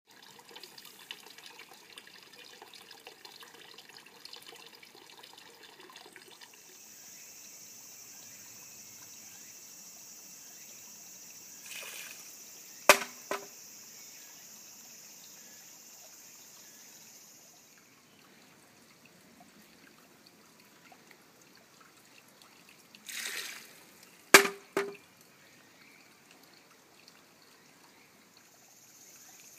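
Water trickling from a bamboo spout into a stone basin, and a shishi-odoshi (bamboo deer scarer) tipping twice, about eleven seconds apart. Each time there is a short splash as the tube spills its water, then a sharp hollow clack as the bamboo swings back and strikes its stone, with a smaller rebound knock half a second later.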